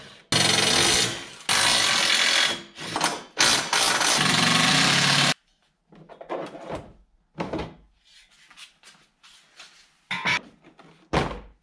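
Cordless impact driver running in four bursts over the first five seconds, backing out the ATV's front rack bolts. After that, scattered quieter knocks and clatter as the loosened rack is handled.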